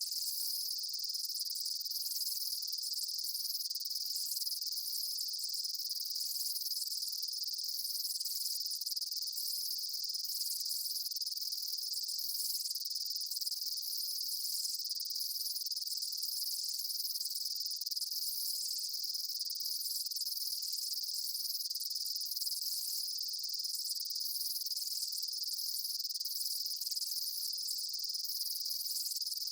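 Daytime insect chorus: a steady, shrill, high-pitched drone with faster pulsing trills above it, keeping an even level throughout.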